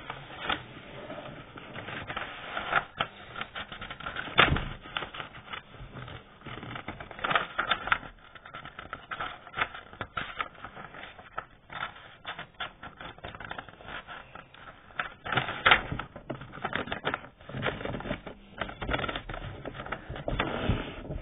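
Sheet of A4 paper being handled, folded and creased by hand into a paper airplane: irregular rustling and crackling, with a couple of louder sharp crinkles.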